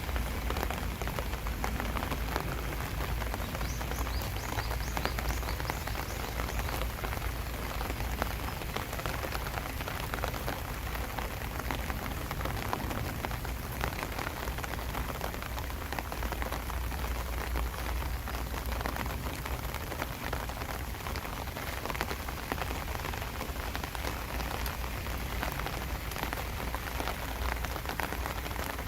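Steady summer rain falling, a dense even patter of many small drop ticks over a low, steady rumble.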